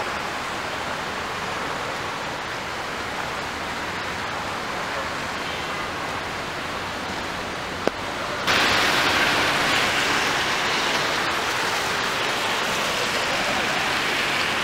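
Steady rushing noise of floodwater, stepping up louder and brighter a little past halfway, with a single brief click just before the change.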